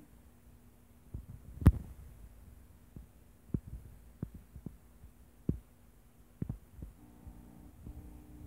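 A conveyor-belt sorting prototype's motor hum cuts off, and the hum comes back faintly about seven seconds in. In between there are scattered light clicks and knocks, the loudest a sharp knock under two seconds in.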